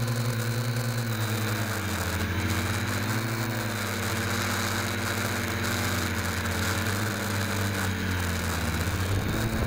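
FPV quadcopter's electric motors and propellers whirring as heard from the drone's own onboard camera, the pitch dropping and rising a few times as the throttle changes.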